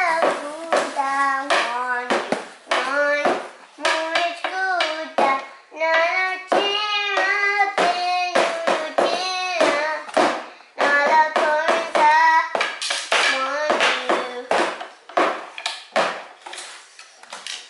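A young child singing in a high voice, long held notes that glide up and down, with light knocks and handling noises mixed in.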